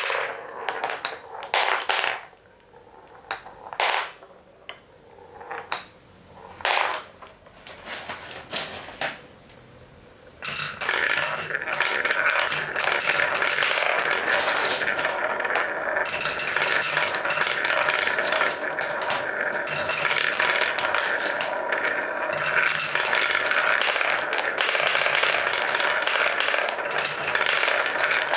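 Wooden balls rolling on a wooden marble run: separate knocks as balls hit the wooden blocks, then from about ten seconds in a steady dense clatter as many balls roll and bump around inside a wooden bowl.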